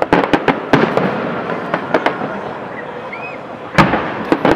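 Fireworks display: repeated sharp bangs of shells bursting, a rapid cluster in the first second, a few more about two seconds in, and another quick cluster near the end.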